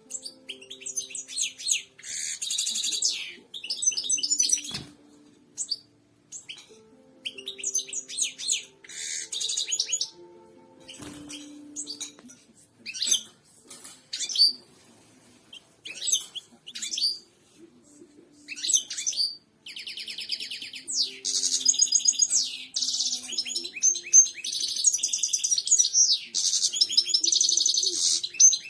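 European goldfinch of the large 'royal' form singing: phrases of fast, high twittering chirps and trills broken by short pauses, ending in one long unbroken song run over the last third.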